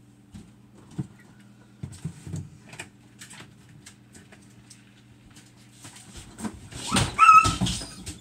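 A dog yelps and whimpers in pain about seven seconds in, its paw caught under a refrigerator door as the door is opened. Before that, a low steady hum with a few light clicks and knocks.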